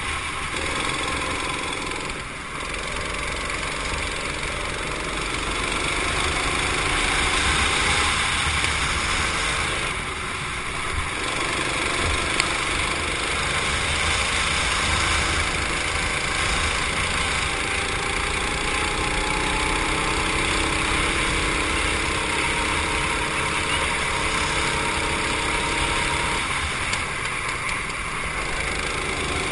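Go-kart engine running hard through a lap. The engine note drops briefly about two and ten seconds in as the kart slows for corners, then climbs again under acceleration, with a low rumble of wind and track noise underneath.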